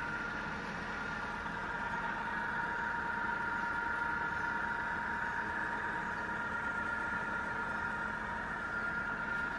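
Falconi all-geared radial drilling machine running, with a steady mechanical hum and a high, even whine from its motor and gearing.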